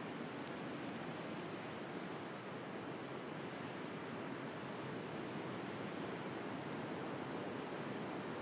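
Steady wash of sea surf, with a few faint crackles from a wood bonfire.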